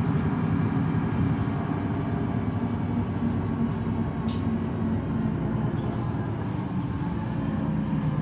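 Solaris Urbino 18 articulated bus running, its DAF inline six-cylinder diesel giving a steady low drone.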